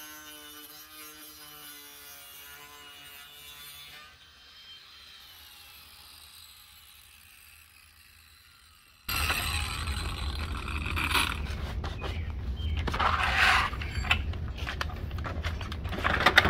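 Cordless angle grinder motor running with a steady whine, stopping about four seconds in and winding down. About nine seconds in, much louder rustling and sharp clicks take over as a vinyl siding corner post is handled and fitted against a wall.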